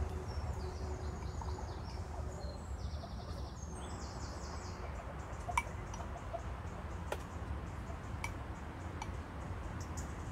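Small birds chirping in quick repeated trills during the first few seconds, over a steady low rumble. About halfway through, a few sharp single clicks sound, the first being the loudest.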